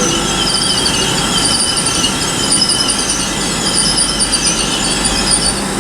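Great Western Railway Class 800 train moving through the station, its wheels squealing in several wavering high-pitched tones over steady rolling rumble.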